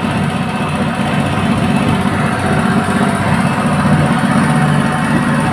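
Honda GX200 single-cylinder four-stroke engine, converted to run on LPG, running steadily at an even speed.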